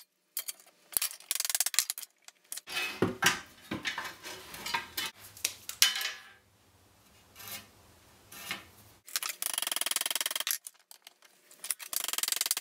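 Sheet metal being worked by hand: a steel file rasping across a metal edge in repeated strokes, with metal-on-metal scraping and light clanks.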